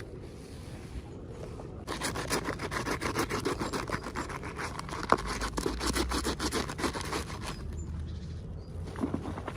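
Plastic packaging crinkling and rustling as it is handled and opened, a dense run of rapid crackles lasting about five seconds, with one sharp click about five seconds in.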